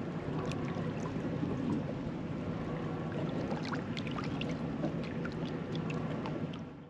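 Water lapping and splashing against a boat's hull, with small ticking splashes over a low steady rumble. It fades out near the end.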